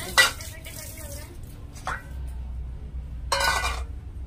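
Steel kitchen utensils clinking. A sharp metallic clink rings on briefly near the start, a smaller knock comes about two seconds in, and a short rattling clatter follows near the end.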